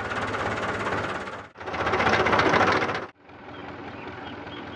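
Diesel tractor engine running with a fast, even firing beat, heard up close in two short shots that break off abruptly. About three seconds in it cuts to a quieter, steadier run from farther off.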